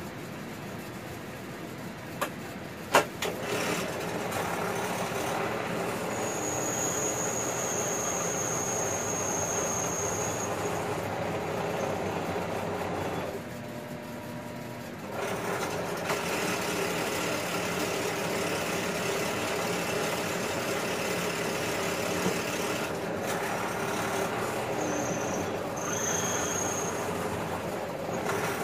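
Benchtop drill press running and drilling into copper, with a thin high squeal from the cut that comes and goes. A sharp click about three seconds in; the machine sound drops away for a moment around the middle and then resumes.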